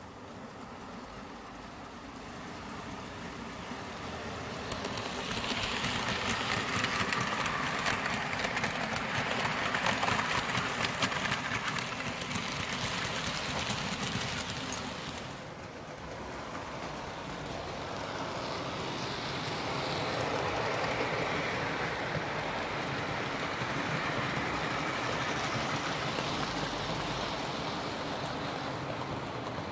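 Model freight train running on the layout's track, its wheels clicking over rail joints and points and getting louder as the wagons pass close. About halfway through, the sound switches to the steady running noise heard from a camera riding on one of the moving wagons.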